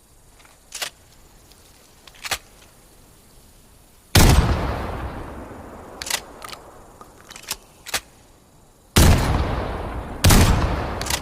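Shotgun sound effect: a few sharp clicks, then three loud shots, about four, nine and ten seconds in, each with a long fading echo. Several sharp clicks fall between the first and second shot.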